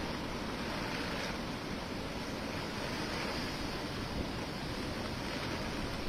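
Cyclone storm: strong wind buffeting the microphone over heavy rain and rough sea, a steady rushing noise.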